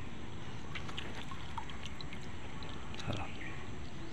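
Light handling noises from a caught fish held in a cloth: scattered small clicks and a soft knock about three seconds in, over a steady background hiss.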